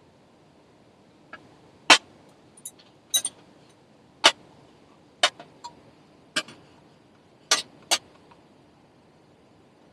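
A series of sharp, irregular clicks and knocks, about ten in all, some coming in quick pairs, over a faint steady background.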